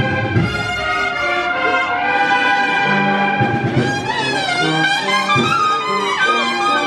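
Procession band playing, led by trumpets and trombones holding sustained notes, with the melody bending in pitch about four seconds in.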